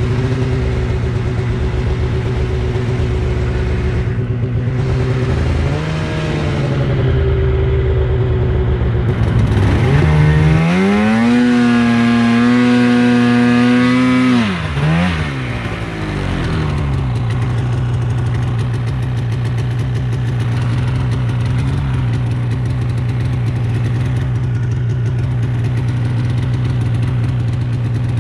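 Polaris snowmobile engine running at low speed, then revving up hard about ten seconds in and held high for about four seconds as the sled ploughs through deep powder, dropping back with a short blip to a low steady run.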